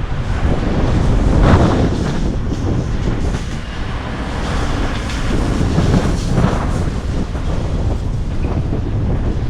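Strong storm wind buffeting the microphone in a loud, low rumble, with gusts swelling about a second and a half in and again around six seconds.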